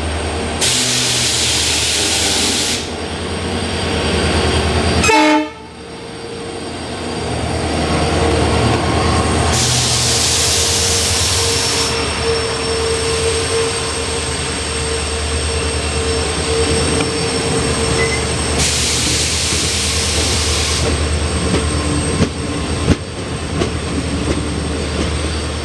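WDP4D diesel locomotive's EMD two-stroke engine running with a steady low drone as it passes, with three loud bursts of rushing noise of about two seconds each, the weird sounds it makes, audible over the train's rumble.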